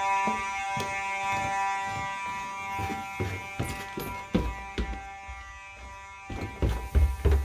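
Fire alarm buzzer sounding a steady buzz that gets somewhat quieter as it goes, with a series of knocks and thumps that are loudest near the end.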